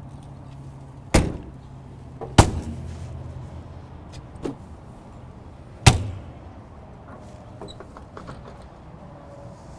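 Aluminium drop windows and hinged doors on a Bloomer horse trailer being swung open and shut, giving three sharp metal bangs with a short ring, the first two about a second apart and the third near six seconds in, plus a lighter knock between them. A steady low hum from the trailer's running generator lies underneath.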